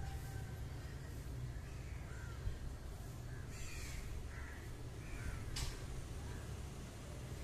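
Crows cawing, a few short caws spaced out over a steady low rumble, with one sharp click partway through.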